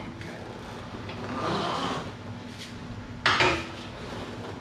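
A 2013 Harley-Davidson Electra Glide Classic being rolled back and forth by hand as a front-brake test after new rotors and pads: a short rubbing swell, then a sharp clunk about three seconds in.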